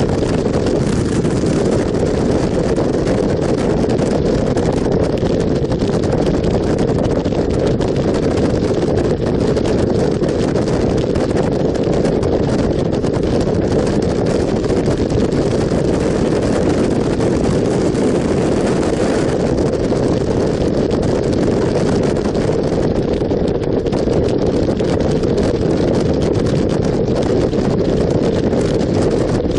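Steady wind rush over the microphone of a motorcycle cruising at speed, with engine and road noise underneath.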